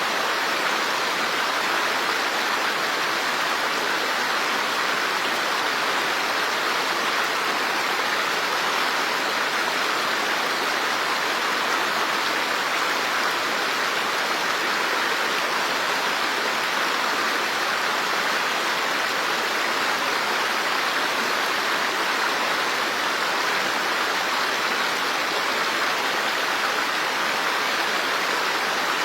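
Running water rushing steadily, an even unbroken hiss with no separate drops or splashes.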